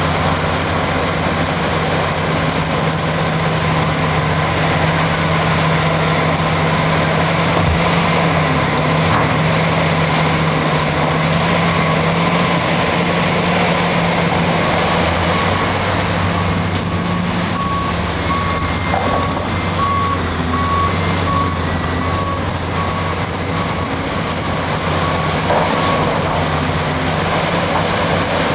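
Heavy Caterpillar diesel engines of a 375 excavator and a 769D off-highway dump truck running steadily as the excavator loads rock. A reversing alarm beeps repeatedly for about ten seconds in the second half.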